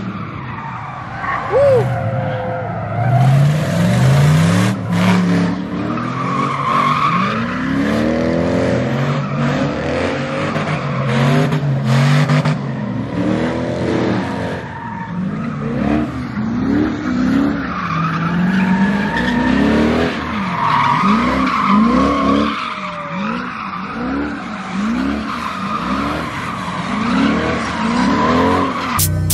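A car engine revving up and down again and again while the car spins donuts, its tyres squealing and skidding on the asphalt. In the second half the revs rise and fall about once a second.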